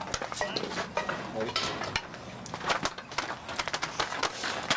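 Irregular light clicks and clatter close by, with faint voices in the background.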